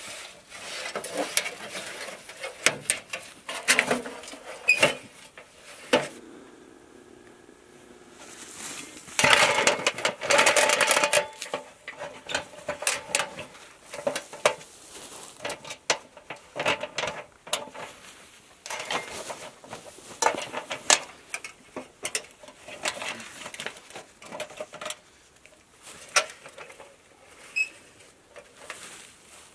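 An AR500 steel gong target and its hanging chains clinking and clanking against a galvanized steel stand as the stand is handled and set up, in irregular knocks, busiest about a third of the way in, with rustling and crunching in frosty grass.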